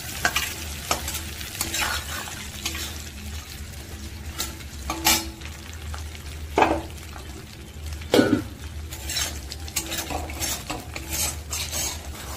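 Steel spatula scraping and stirring through sizzling hot oil in a kadai (wok), the oil left over from frying turmeric-coated prawns. Strokes repeat throughout, with louder scrapes about five, six and a half and eight seconds in, over a steady low hum.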